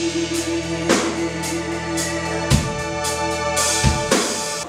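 Live band music: drum kit strikes over sustained keyboard chords. The music cuts off abruptly just before the end.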